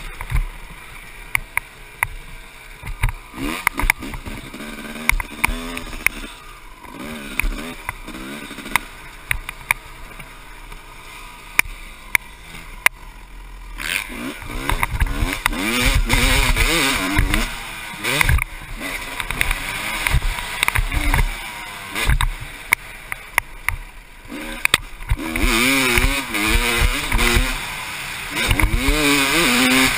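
1996 Honda CR250 single-cylinder two-stroke motocross engine revving up and falling off again and again as the bike is ridden, louder and harder-revving from about halfway, with sharp knocks throughout.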